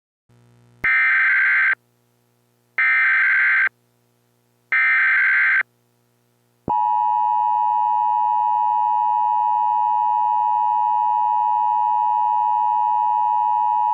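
Three Emergency Alert System SAME header data bursts, short buzzy digital screeches about a second each with a second's gap between them, followed about seven seconds in by the steady two-tone EAS attention signal, which holds. A faint low hum sits underneath.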